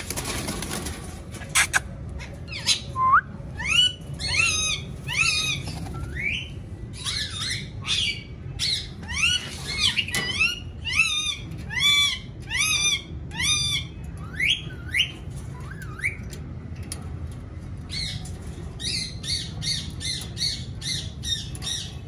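Green parakeet squawking: a long run of harsh, repeated calls, two or three a second, each rising then falling in pitch, with a pause about two-thirds of the way through before a quicker run of shorter calls. A brief rustling flurry at the very start.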